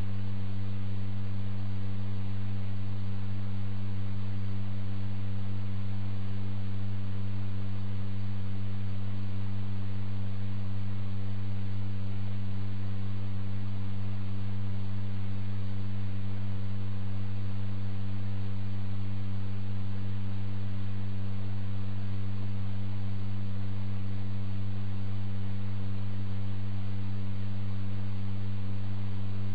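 Steady low electrical hum with a stack of overtones over a faint hiss, unchanging throughout.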